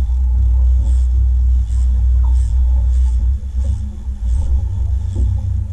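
Heavy, steady low rumble picked up by a camera mounted on a small fishing boat, with faint voices and a soft high hiss pulsing about every two-thirds of a second.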